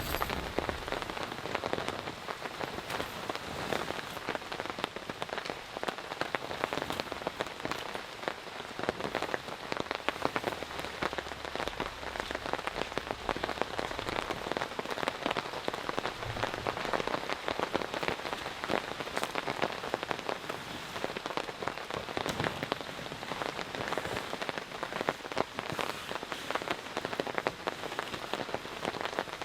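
Heavy rain falling steadily, its drops striking a surface as a dense stream of many small sharp taps.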